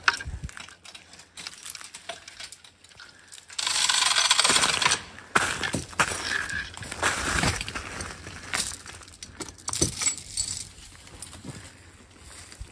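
Metal harness and chain hardware on a draft horse team jingling and clinking as the horses are handled and hooked up to a log. There is a louder stretch of scuffing and crunching movement about four seconds in.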